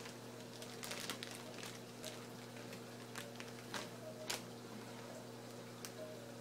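Scattered light clicks and taps of a protein skimmer's parts being handled, over a steady electrical hum.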